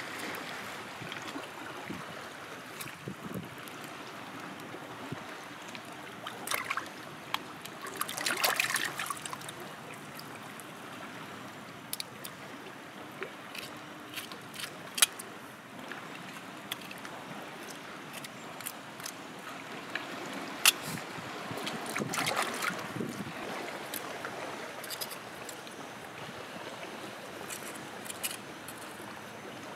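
Shallow water trickling over rocks, with a few louder splashing bursts and scattered small clicks and scrapes as a sea cucumber is cut open with a knife and rinsed in the water.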